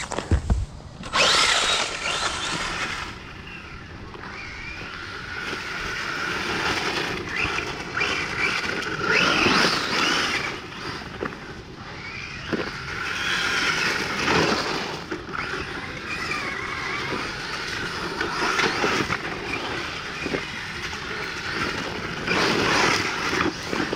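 A motor vehicle being driven, its engine and drivetrain running in several surges that rise and fall over a continuous rolling noise.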